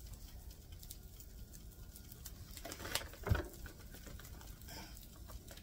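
Soft handling sounds as slices of bread are laid on top of sandwiches on a panini press: faint light taps and rustling, with one dull thump about three seconds in.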